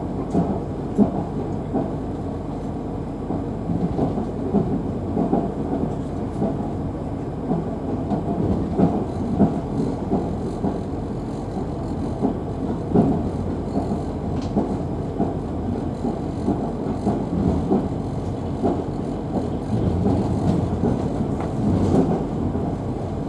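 Passenger train running along the track, heard at the carriage window: a steady low rumble of wheels on rails with irregular louder knocks.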